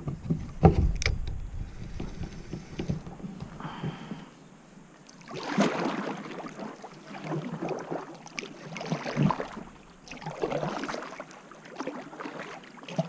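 Kayak paddle strokes dipping and splashing in lake water, a stroke every two to three seconds. A loud thump about a second in.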